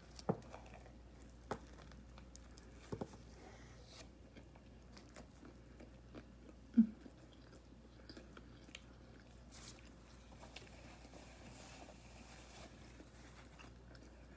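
Close-up mouth sounds of someone chewing a bite of sub sandwich, with scattered wet clicks and smacks. One short low hum-like sound about seven seconds in.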